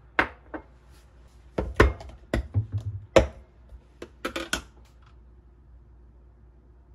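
Tableware set down and handled on a hard countertop: a small ceramic dish knocks down, then a plastic food storage container clacks as it is put down and its lid is opened. About a dozen sharp knocks and clicks, the loudest a little under two seconds in and about three seconds in, ending in a quick run of clicks near the middle.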